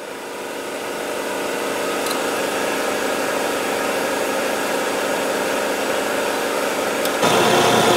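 Diesel fuel-injection test stand (engine simulator) running steadily, a mechanical hum with a whine. It fades up over the first second, and it gets louder and heavier about seven seconds in.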